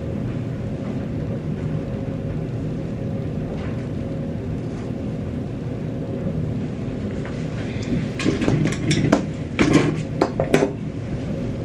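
A steady low hum and rumble with a faint steady tone in it; about eight seconds in, a few seconds of clicking and clattering as small toiletry items are picked up and set down.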